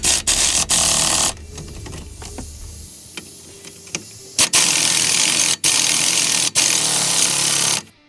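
Impact wrench hammering the brake caliper mounting bolts tight: a loud burst of about a second, then after a short pause a longer run of about three seconds, broken twice by brief stops.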